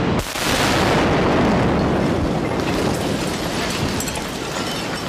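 A bomb explosion from an air strike: a sudden loud blast about a third of a second in, then a long rushing rumble that slowly fades, with scattered faint crackles in the later part.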